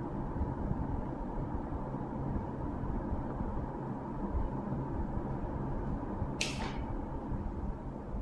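Steady low background rumble and hum, with one brief paper rustle from the open book about six seconds in.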